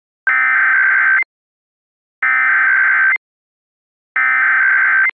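Emergency Alert System SAME header: three bursts of digital data tones, each about a second long with about a second's pause between them, carrying the coded alert (a Required Monthly Test) that begins an EAS broadcast.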